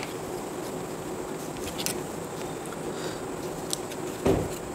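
Steady room hiss with a faint hum, and a few light clicks from the multimeter test probes being handled and set on the transistor's legs. There is a short low thud near the end.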